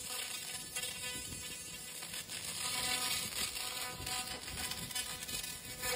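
Fiber laser cleaning beam ablating paint from a steel plate, giving a steady crackling hiss of fine irregular clicks, with a faint steady hum underneath.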